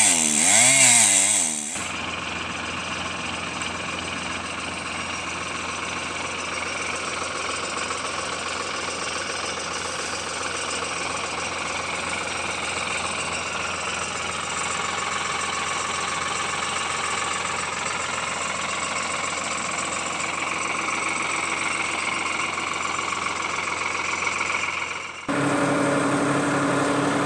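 Chainsaw revving under load in a large Leylandii trunk, cut off abruptly after about two seconds. After that an engine runs steadily at idle, and another engine is heard near the end.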